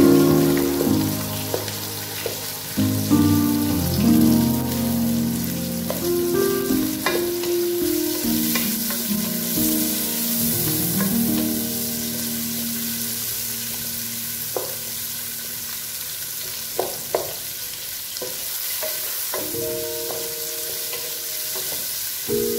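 Sliced onions sizzling in hot oil in a pot, with a wooden spatula stirring and knocking against the pot now and then. Soft background music with held notes plays over it, mostly in the first half.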